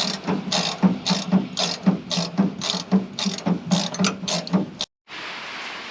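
Hand socket ratchet clicking in quick, even strokes, about four a second, as bolts are worked loose on a combine. It stops abruptly about five seconds in and a steady hiss follows.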